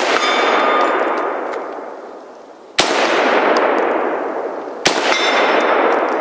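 Two shots from a Springfield M1A Scout Squad rifle in .308 (7.62×51), about three seconds in and again two seconds later. Each echoes and dies away over about two seconds, with a metallic ring from a struck steel target. It opens on the echo of a shot fired just before.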